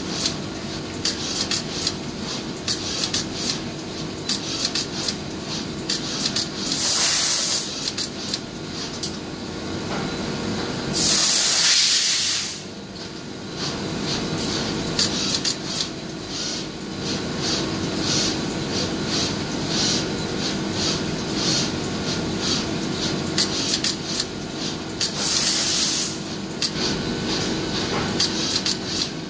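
Samsung SMT pick-and-place machine running, with a steady hum and rapid irregular clicking as it works. Three loud hissing bursts come through, the longest near the middle.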